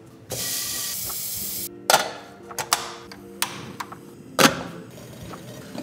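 Portable butane camp stove being lit: a steady hiss of gas for about a second and a half that cuts off sharply, then a few sharp clicks and knocks, the loudest a little past the middle. Soft background music plays underneath.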